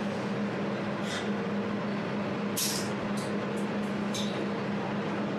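Jewelry laser welding machine running with a steady hum, with about six short, sharp, high-pitched snaps: one about a second in, then a quick cluster a little before the four-second mark. The snaps fit single laser weld pulses.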